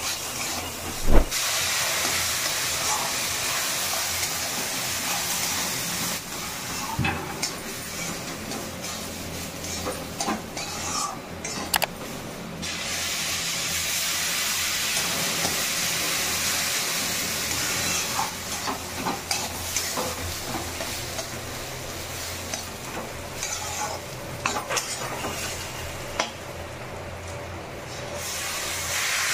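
Water poured into a hot steel wok of roasted grains, hissing and sizzling as it turns to steam, with a metal spoon clinking and scraping against the pan as it is stirred. The hiss swells and fades in long stretches as the water is added.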